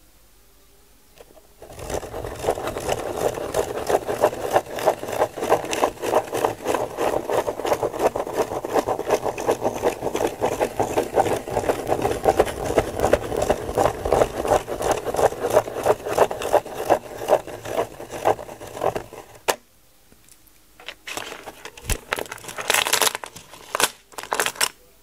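Pen scratching on paper as a plastic Spirograph gear is wheeled round inside its toothed ring: a fast, even, rhythmic scraping that starts about two seconds in and stops a few seconds before the end. A few scattered clicks and rustles follow.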